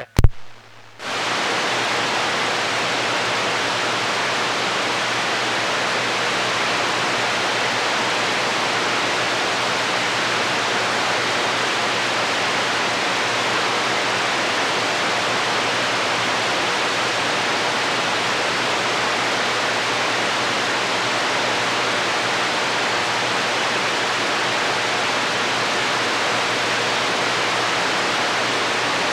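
CB radio receiver with its squelch open, giving a steady hiss of static, just after a brief chirp and click at the very start.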